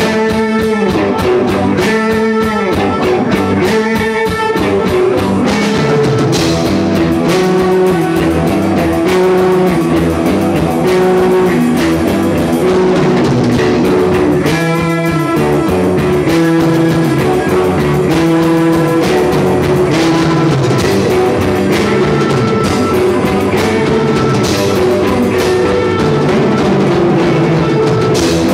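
Rock music with electric guitar and a drum kit, played loudly and continuously.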